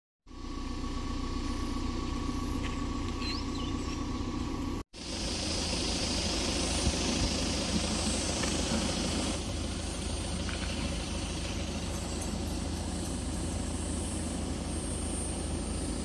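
Outdoor ambience: a steady low rumble, broken by a brief drop-out about five seconds in.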